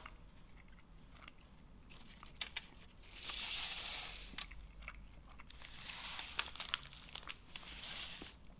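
Faint close-up chewing of a chewy candy coated in sugar syrup and icing sugar: small wet mouth clicks and crunches, with two longer, louder spells of chewing noise, one about three seconds in and one from about six seconds.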